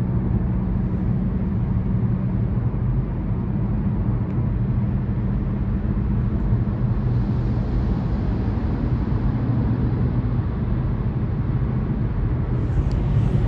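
Steady road and engine noise of a car cruising on a highway, heard from inside the cabin as a constant low rumble.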